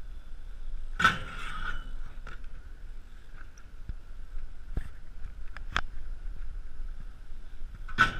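BMX bike riding on concrete skatepark ramps: a steady rolling rumble, broken by two loud clanks each followed by a short scrape, about a second in and near the end, with a few lighter knocks between.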